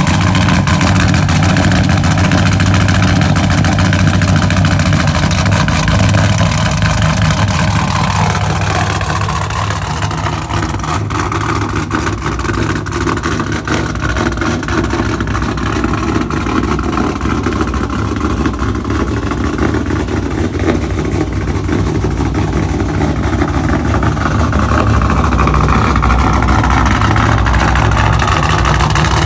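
Straight-piped 2013 Camaro SS's LS3 V8, fitted with a Texas Speed stage 4 cam, idling just after a cold start. The fast warm-up idle drops in pitch and loudness about eight to ten seconds in, and the engine gets louder again near the end.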